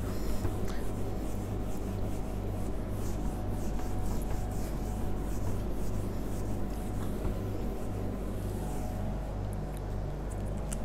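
Whiteboard duster rubbing across a whiteboard in repeated back-and-forth strokes, wiping off marker writing; the strokes stop about nine seconds in. A steady low hum runs underneath.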